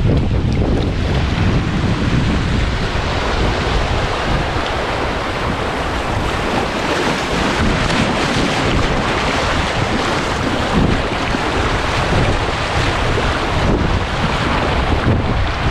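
Rushing river water churning through a riffle around a kayak, a steady hiss, with splashes from the paddle strokes. Wind buffets the microphone, adding a low rumble that is heaviest near the start and end.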